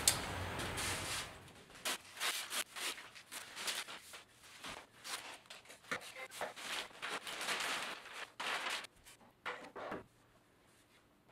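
A steady hiss for about the first second and a half, then carbon fiber cloth rustling and scraping in short irregular bursts as it is cut with scissors and rolled onto a cardboard tube. The handling sounds die away near the end.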